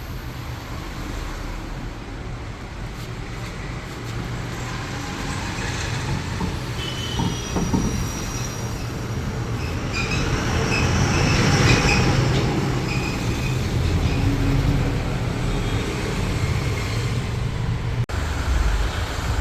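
Motor vehicle noise: a steady low engine hum that swells louder about ten seconds in, with high squeaks over it, then eases back.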